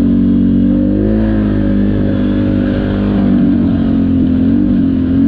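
ATV engine running at a steady throttle, its pitch lifting briefly about a second in and again near the end.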